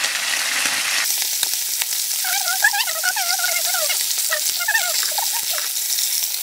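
Fresh trout frying in a pan, a steady hissing sizzle. A wavering pitched sound runs over it through the middle seconds.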